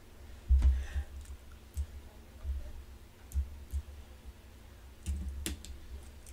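Fingers tapping on an iPad touchscreen: scattered light clicks with dull low thumps at uneven intervals, the loudest about half a second in and again around five seconds in.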